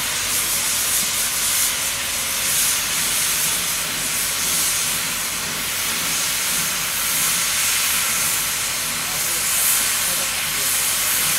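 Puffing Billy narrow-gauge steam locomotive working across a trestle bridge, its exhaust steam giving a steady hiss.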